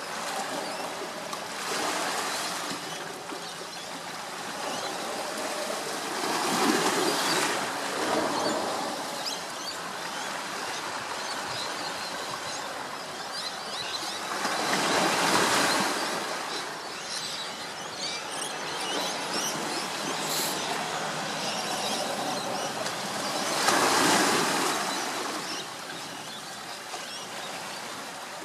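Waves washing on a shore: a steady rushing that swells and fades in slow surges several seconds apart, four times, the later three loudest.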